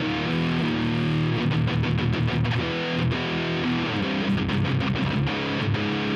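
Electric guitar riffing with heavy distortion from a Vigilante distortion pedal (a copy of the Providence SDT-1), boosted by a Woodrite Warlord and run into a Kemper profile of an Engl Invader amp through a Marshall 4x12 cabinet impulse response. The riff moves quickly from note to note with short choppy gaps.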